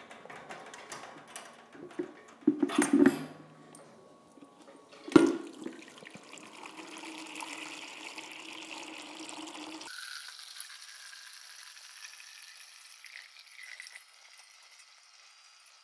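Hot water running from a hose into a plastic measuring jug, a steady splashing hiss that starts about six seconds in and turns thinner and quieter about ten seconds in. Before it, a few knocks and one sharp clunk as the hose fittings and jug are handled.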